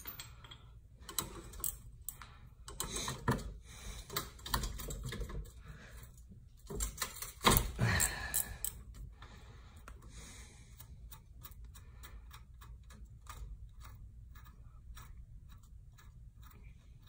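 Ratchet wrench clicking as a 14 mm nut is turned, with metal tool clatter and knocks in the first half, the loudest about seven and a half seconds in. From about ten seconds on, a steady run of light ratchet clicks, two or three a second.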